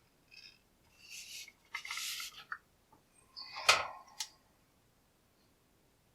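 Small hard objects handled on a workbench as a little pin tray is set out: two brief scraping, rubbing sounds, then a sharp clack about three and a half seconds in and a lighter click just after.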